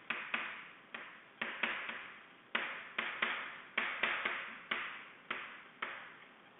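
Chalk writing on a chalkboard: an irregular run of sharp taps and short scratchy strokes, about two or three a second, as each letter is drawn.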